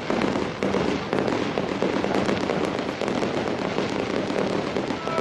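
Fireworks going off in a dense, continuous crackle of many small bangs.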